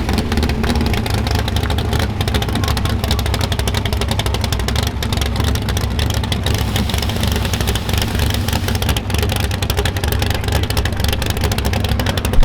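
Car engine running loudly and steadily with a rapid pulsing exhaust, holding an even pitch without revving.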